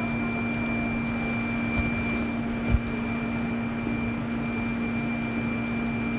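Steady machine hum of a Spinner VC450 vertical machining center standing by: a low drone with a thin high whistle over a noise haze. Two faint clicks come near the middle, the second one a little louder.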